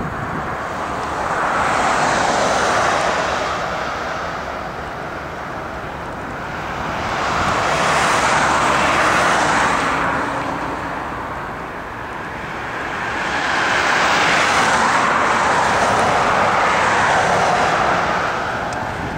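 Road traffic passing close by: three vehicles go past one after another, each a whoosh of tyre and engine noise that rises and falls over several seconds.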